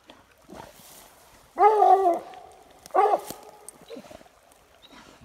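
English coonhound baying treed: two loud barks about a second and a half apart, the first drawn out longer than the second.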